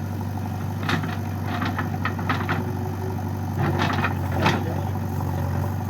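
Heavy diesel engine running steadily at low revs, with a run of sharp knocks in two clusters, the loudest near the middle.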